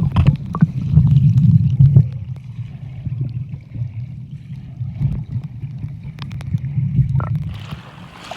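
Muffled low rumble of sea water sloshing, with a few faint clicks scattered through it.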